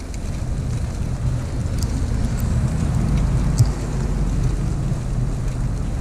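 Storm wind buffeting the microphone with a steady low rumble that swells slightly midway, over a faint hiss, with a few scattered sharp ticks.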